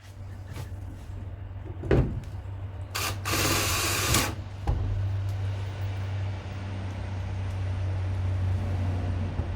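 A power drill driving screws to fix a tool rack to a trailer wall: a sharp knock about two seconds in, then a burst of the drill running for about a second, over a steady low hum.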